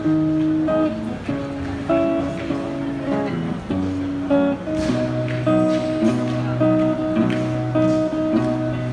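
Guitar strumming a chord progression, the chords changing about every second, as the instrumental opening of a song before the vocals come in.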